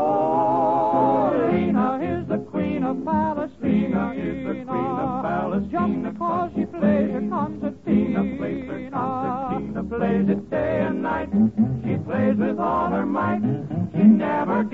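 Male vocal quartet singing a comic novelty song with dance-band backing: a long held chord, then quick clipped notes.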